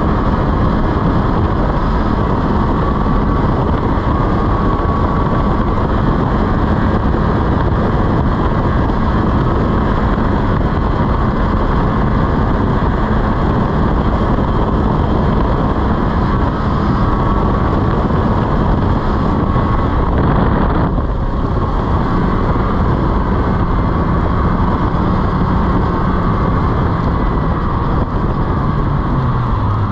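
Snowmobile engine running steadily while riding, loud and continuous; its note drops near the end.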